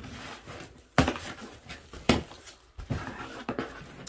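A screwdriver working through the packing tape of a cardboard shipping box, with the cardboard scraping and rustling. There are sharp clicks about one second and two seconds in.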